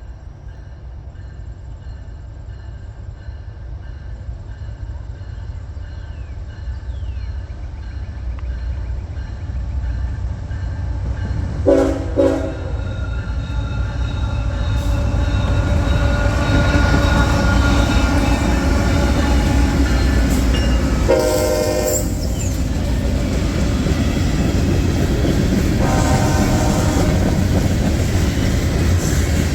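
Freight train led by a GE ET44AC diesel locomotive approaching and passing, its engine rumble and wheel noise growing louder over the first fifteen seconds or so and then holding steady. The locomotive horn sounds a short blast about twelve seconds in, a longer one around twenty-one seconds, and a fainter one near the end.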